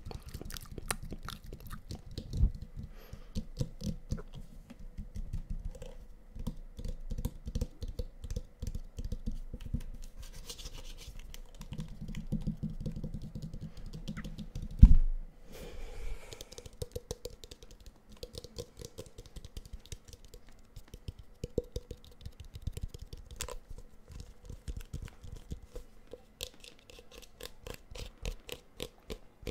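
Fast fingernail tapping and scratching on a black plastic hairbrush held close to the microphone: a dense run of quick clicks, with one loud knock about halfway through.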